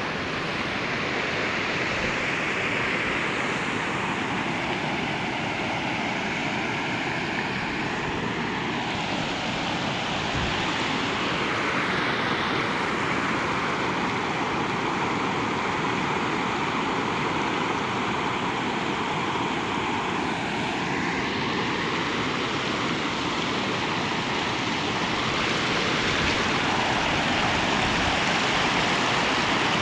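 Fast-flowing floodwater of a swollen river rushing, a steady unbroken wash of water noise.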